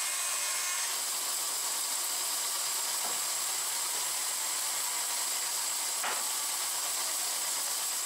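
Hall and Brown No. 2 36-inch bandsaw finishing a cut through a wide board about a second in, then running free with a steady hiss and a thin high whine. Two faint knocks come about three and six seconds in.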